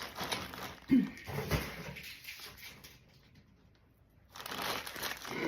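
Rustling and scraping of a cardboard box being opened and its packing material handled. The rustling stops for about a second past the middle, then starts again.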